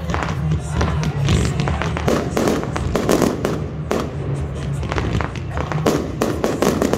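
Aerial fireworks going off in quick succession, with many sharp bangs and crackles, over music with a steady bass line.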